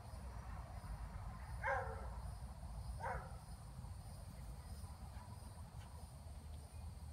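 Border collie barking twice, two short barks about a second apart, over a steady background drone of crickets.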